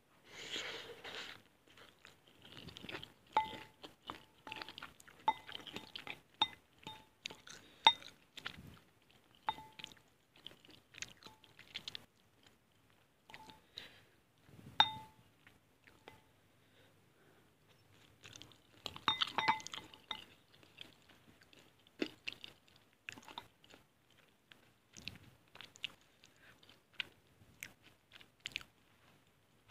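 Close-miked chewing and biting of spicy fried instant noodles (mie goreng), with short ringing clinks and scrapes of a fork and wooden spoon against a glass bowl.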